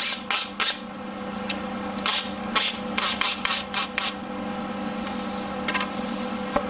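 Cordless drill driving screws through a plywood board, giving short scraping bursts in two runs: in the first second and again from about two to four seconds in. A steady low hum underlies it.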